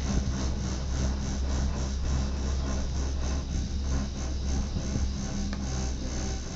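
Steady low hum and rushing noise of a cable car gondola riding up the line.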